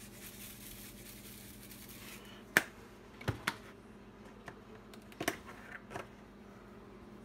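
A few sharp clicks and light taps of handling on a kitchen counter, the loudest about two and a half seconds in and the rest in a loose cluster after it, over a faint steady hum.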